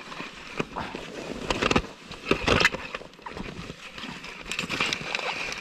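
Snow crunching and scraping in irregular bursts, loudest twice in the first few seconds.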